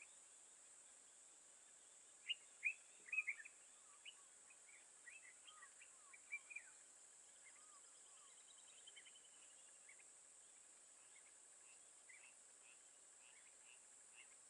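Birds chirping: a flurry of short, sharp calls about two to four seconds in and again around six seconds, with scattered chirps after, over a faint steady high hiss.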